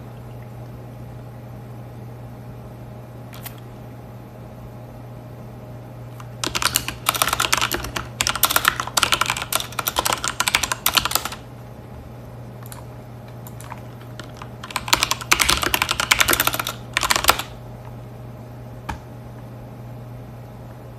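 Rapid clicking and tapping like typing, in two runs: about five seconds of it starting some six seconds in, and a shorter run about fifteen seconds in, with a few single clicks between. A steady low hum runs underneath.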